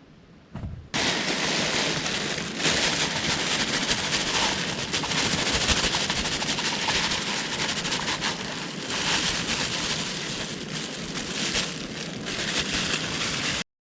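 Strong wind gusting and buffeting the microphone, a loud surging rush that swells and eases and cuts off suddenly near the end.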